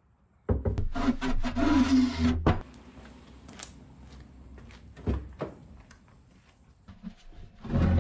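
Carpeted plywood board being slid into place on a wooden bed platform, scraping and knocking loudly for about two seconds, then a couple of lighter knocks about five seconds in. Near the end another burst of rubbing and knocking as the board is handled again.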